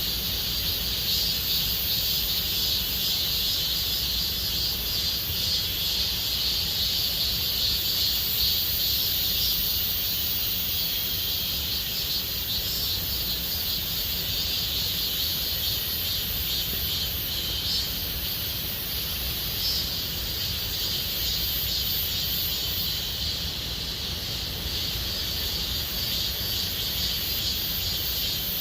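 A chorus of cicadas buzzing steadily and without a break, a dense, shrill drone at two high pitches, over a low rumble.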